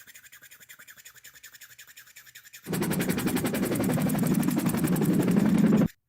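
A rapid, even rattle of about fifteen pulses a second, like automatic gunfire: thin and faint at first, then about two and a half seconds in much louder and fuller, cutting off suddenly near the end. It is a synthetic sound effect.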